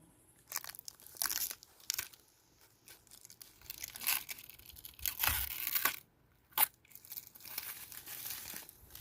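Protective plastic covering being torn and peeled off a new mini fridge, crinkling in irregular bursts.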